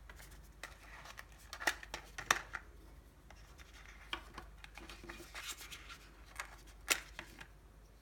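Small plastic pieces of an Aqara door-and-window sensor being handled and taken off a cardboard backing card: scattered light clicks, taps and rubbing, with sharper clicks about two seconds in and near the end.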